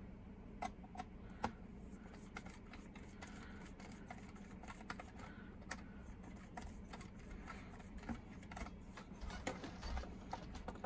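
Faint, scattered small clicks and taps of a screwdriver backing a tiny flathead screw out of a plastic HO-scale model locomotive shell, then light handling of the model, over a low steady hum.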